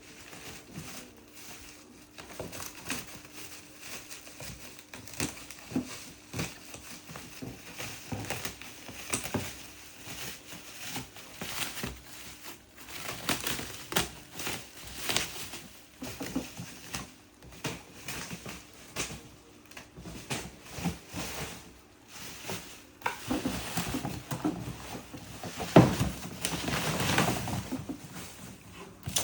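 Packaging being opened and handled: irregular rustling and crinkling of plastic wrap and cardboard, with sharp clicks and knocks of a plastic trash bin being handled. It grows louder and busier near the end, with one sharp knock the loudest.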